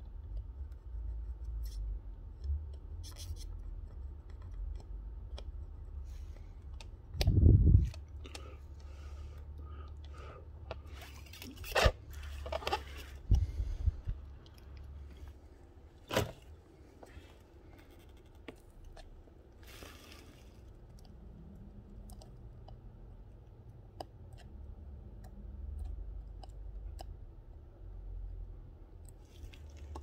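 Small tools and parts being handled during an electronics repair: scattered clicks and scrapes with a few dull knocks, the loudest about seven seconds in, over a low steady hum.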